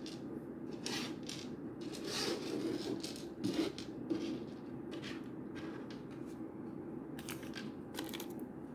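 Light handling noises of a plastic action figure and its packaging being set down and picked up: short, irregular rustles and small clicks over a steady low hum.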